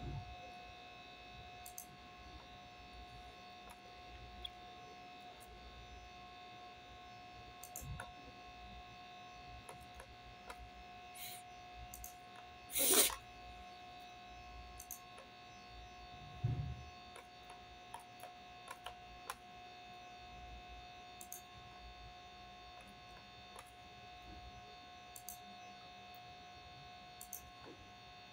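Faint steady electrical hum made of several fixed tones, under scattered soft clicks of a computer mouse and keyboard. About 13 seconds in there is a short, louder rush of noise, and a few seconds later a low thump.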